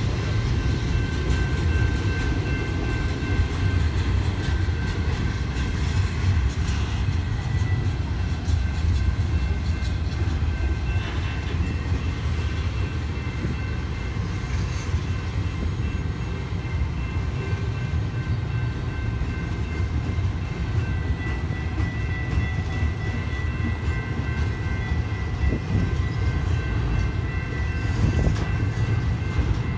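Double-stack intermodal well cars rolling past: a steady low rumble of steel wheels on rail, with faint thin high tones above it.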